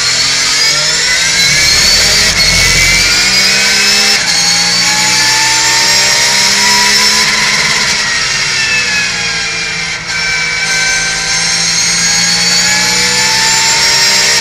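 Porsche Carrera Cup race car's flat-six engine at full throttle, heard from inside the stripped cockpit. The engine note climbs for several seconds, drops about two-thirds of the way through, then climbs again.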